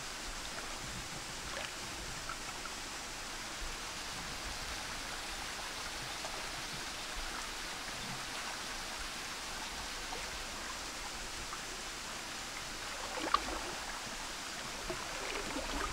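Fast-flowing, muddy creek running steadily, a constant rush of water. There is one brief sharp sound about thirteen seconds in.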